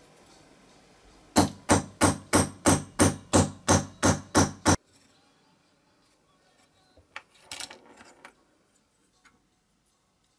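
Small hammer tapping quickly and evenly, eleven sharp strikes at about three a second, each with a short ring, stopping abruptly. A few faint handling clicks follow near the end.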